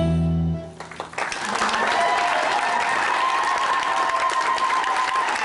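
Belly dance music ends on a held final chord; about a second in, the audience breaks into applause and cheering that carries on steadily.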